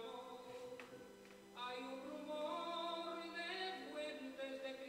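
Recorded Spanish music with a singing voice on long held notes; a new, louder phrase comes in about a second and a half in.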